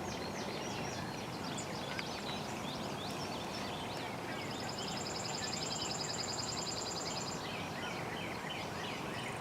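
Songbirds chirping in a morning chorus over steady background noise, with one rapid high trill lasting about three seconds near the middle.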